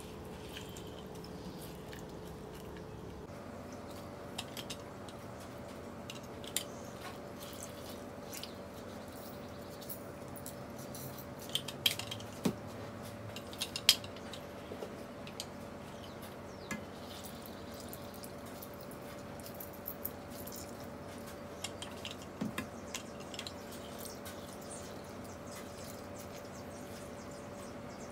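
Hand-held citrus squeezer pressing limes over a metal bowl: scattered clicks and small knocks as it closes and is handled, the loudest about halfway through, with lime juice dripping. A steady low hum runs underneath.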